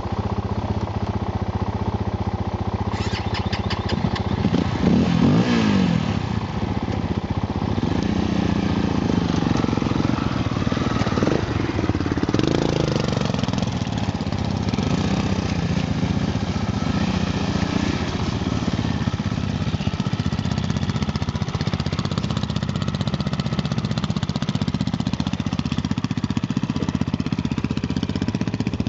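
Triton 450 SM quad's engine running as it rides over dirt, revving up with rising pitch about five seconds in and then pulling steadily.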